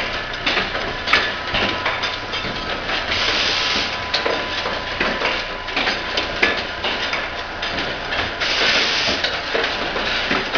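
Insulin syringe assembly machinery running: a continuous clatter of mechanisms with frequent sharp clicks and knocks, a faint steady whine, and two longer bursts of hiss, about three seconds in and again near nine seconds.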